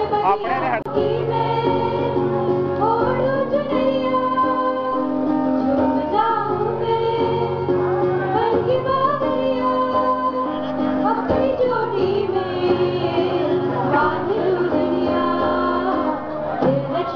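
A mixed group of male and female voices singing a song together in long held notes, with acoustic guitar accompaniment.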